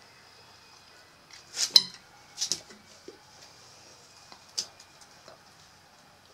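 Dog sniffing close up: a few short, sharp sniffs and snuffles, the loudest about a second and a half in, another about a second later and a single one near the end.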